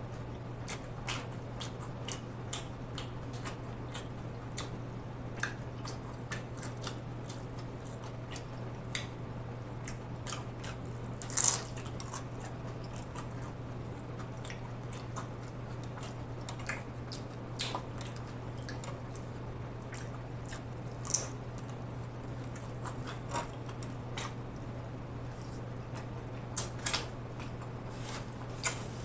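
Close-miked chewing and biting of crunchy hard-shell tacos: irregular crisp crunches of the taco shell, the loudest about eleven seconds in, over a steady low hum.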